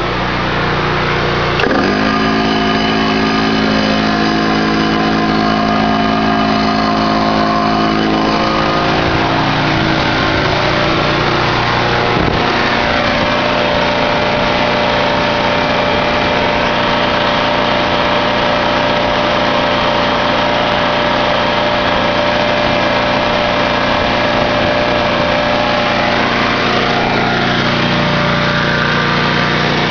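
Honda 20-horsepower V-twin engine running steadily, driving a Harbor Freight generator head. Its note changes sharply about two seconds in and again around twelve seconds in.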